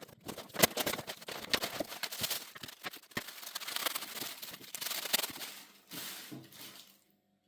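Parcel packaging being opened by hand: a dense run of crackling, rustling and tearing of paper or plastic with sharp clicks, stopping about seven seconds in.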